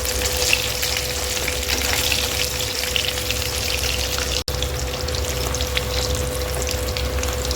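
Pieces of fish sizzling and crackling as they shallow-fry in hot oil in a kadai, a steady sizzle with scattered pops. The sound cuts out for an instant about halfway through.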